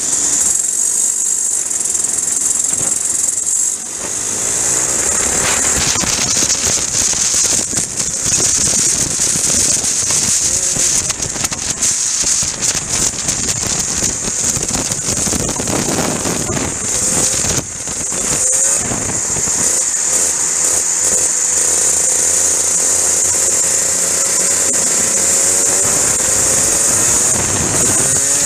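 Rotax Max 125 cc two-stroke kart engines revving, the pitch rising and falling as the karts accelerate and lift, over a steady high hiss.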